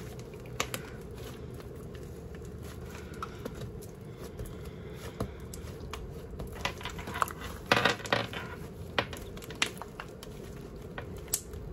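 Slime being kneaded and stretched by hand with shaving foam worked into it, giving scattered small sticky clicks, pops and crackles, with a denser run of them about eight seconds in.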